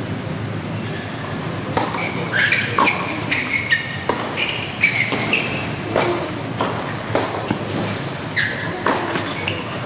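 A tennis point on a hard court: the ball is struck by rackets and bounces, about once a second, with sneakers squeaking sharply between shots. The sound echoes in a large hall.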